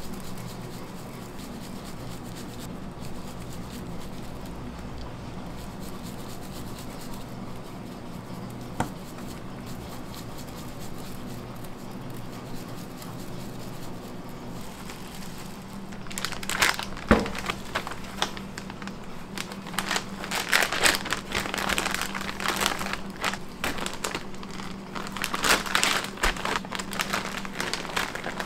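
Clear plastic vacuum-seal bag crinkling in bursts as seasoned beef ribs are handled into it, with one sharp knock about halfway through. The crinkling starts a little past the middle. Before it there is only a steady low kitchen hum.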